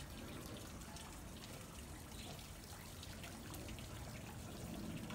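Water trickling steadily into a hot-spring pool, with scattered faint drips.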